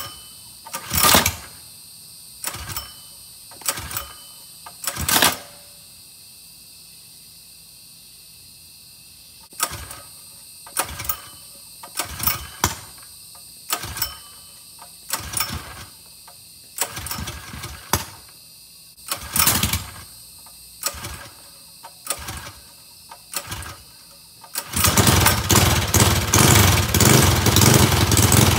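Predator 212cc single-cylinder four-stroke engine, fitted with a stage 2 performance kit, being pull-started with its recoil starter: about twenty sharp yanks roughly a second apart, with a pause of a few seconds after the first four. About 25 seconds in it catches and runs steadily and loudly.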